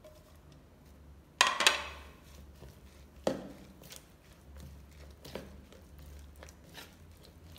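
A steel spoon stirring thick gram-flour batter with vegetables in a plastic bowl, with a few sharp knocks and clinks, the loudest two close together about a second and a half in and another about three seconds in. A steady low hum lies underneath.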